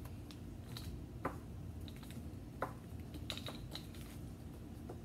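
Irregular light clicks and taps from small items being handled on a tabletop, spaced out at a few a second or less.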